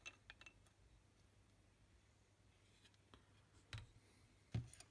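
Faint handling sounds of a circuit board: a few light clicks, then two soft knocks near the end as the board is turned over and set down on a rubber bench mat.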